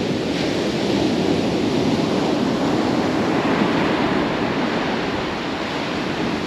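Atlantic Ocean surf washing onto the beach: a steady rush of breaking waves.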